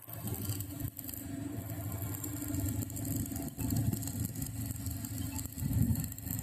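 An engine running at a steady idle, a low rumble that swells louder a couple of times.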